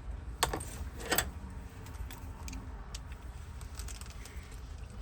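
Metal clicks and clinks of a Honda Fit door lock cylinder being handled and worked apart: two sharp clicks in the first second or so, then lighter ticks.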